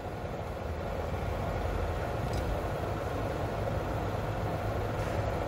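Manual lathe running, its chuck spinning, with a steady hum from the motor and spindle drive.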